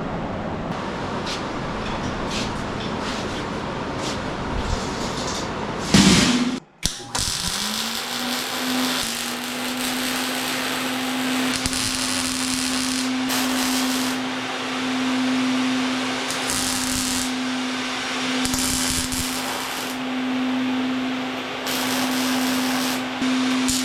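An electric power tool's motor spins up after a sudden break about a quarter of the way in, then runs at a steady pitch. Changing bursts of hiss over it suggest the tool working on metal.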